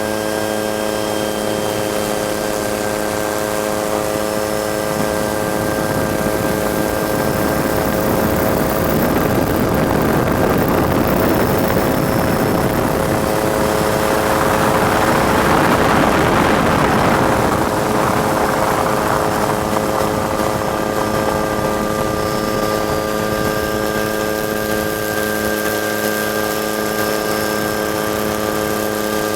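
Helicopter running in steady flight, with a constant turbine and rotor whine of several unchanging tones. A rushing noise swells through the middle and fades again.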